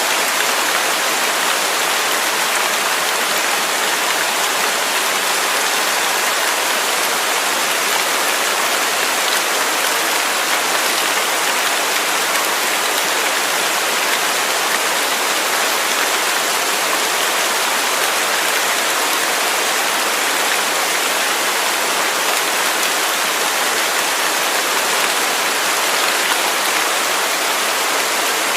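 Waterfall: water falling and splashing in a steady, even rush that doesn't change.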